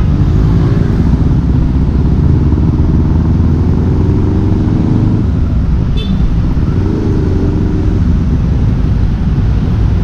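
Honda CBR250RR engine running through a Leovince LV One aftermarket exhaust with the dB killer fitted, in slow traffic: the revs climb in short pulls and drop back as the throttle closes, about five and eight seconds in.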